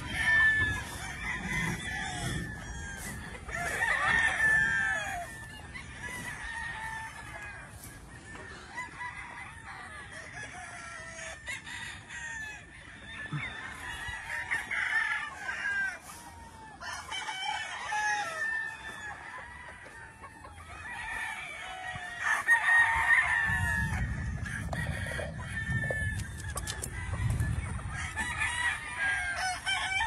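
Gamefowl roosters crowing over and over in several bouts from pen to pen, with chickens clucking in between. A low rumble joins in about two-thirds of the way through.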